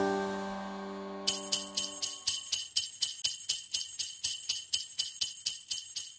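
The last notes of the music ring out and fade, then sleigh bells start shaking in a steady rhythm, about four shakes a second, a little over a second in.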